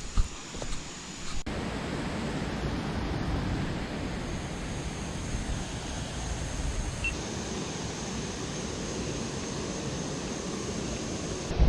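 Steady rushing of fast-flowing floodwater in rapids, an even unbroken noise, with a brief knock or handling bump near the start.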